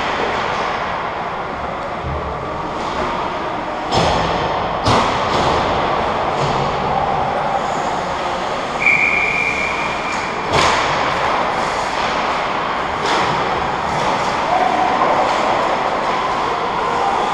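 Ice hockey play on an indoor rink: a steady wash of skates scraping the ice, with several sharp knocks of sticks and puck, and a short whistle about nine seconds in.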